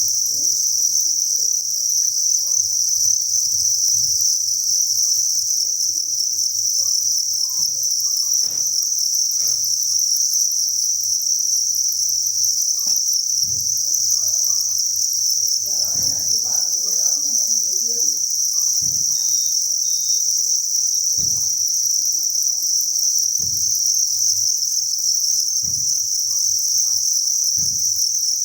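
A dense, continuous chorus of many crickets chirping together, a steady high-pitched trill. Faint scattered knocks and a low hum sit underneath.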